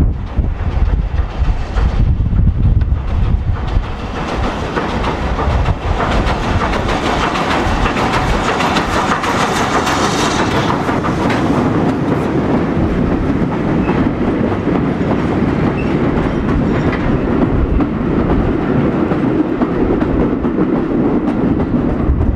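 A steam locomotive hauling a train of coaches passes close beneath, loudest about halfway through. The coaches then roll past steadily until the last one has gone by near the end.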